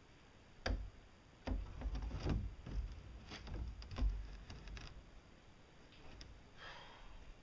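Long PVC pipe knocking and scraping against the boat's frame as it is lowered and set in place: a series of sharp knocks over the first five seconds, the loudest about four seconds in.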